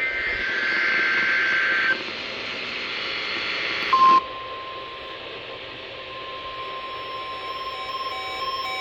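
NOAA Weather Radio receiver hissing with static. For about the first two seconds a pair of steady data tones comes through, typical of a SAME header. About four seconds in a loud burst opens the steady 1050 Hz warning alarm tone, which goes on under static and broken tones from an interfering station.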